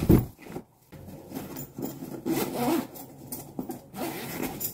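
A fabric tool bag and its cardboard box being handled on a plywood table: a knock right at the start, then irregular rubbing and scraping of fabric and cardboard against wood.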